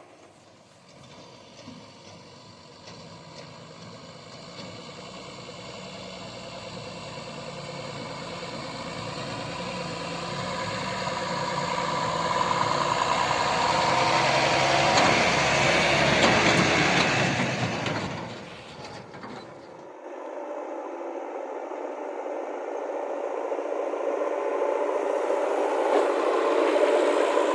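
Heavy diesel vehicle engine running, growing steadily louder as it draws near, loudest past the middle, then dropping away about two-thirds through. It then changes abruptly to a thinner, hissy engine sound with none of the deep rumble, which rises again toward the end.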